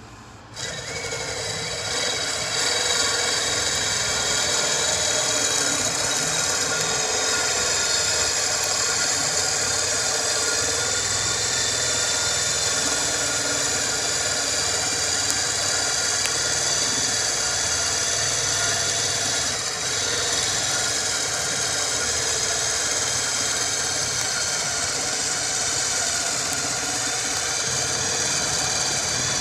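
Electric drill running steadily under load, spinning a hickory dowel through a steel dowel-sizing die, whose blade is shaving the hard wood down to ramrod size. It starts about half a second in.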